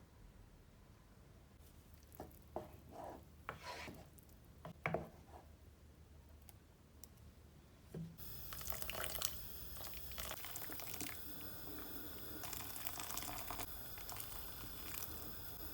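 A few light knocks and clicks of kitchen work, then, about halfway, a tap is turned on and water runs steadily into a sink.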